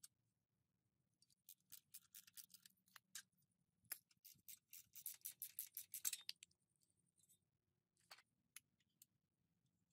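Faint metal clicking and scraping from pliers working on a mud-caked motorbike drive chain. A quick run of clicks grows denser about five to six seconds in, then comes a few single clicks near the end.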